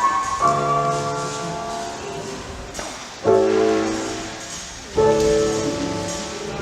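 Piano playing slow chords, each struck and left to ring and fade, three times: music of the kind played to accompany ballet barre exercises.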